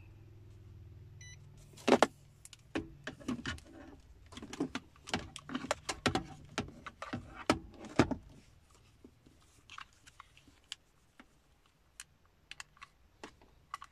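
Handling noise of a digital multimeter: a run of sharp plastic clicks and rattles as its rotary selector dial is turned and its buttons and test leads are worked. The clicks thin out to scattered faint ticks in the second half.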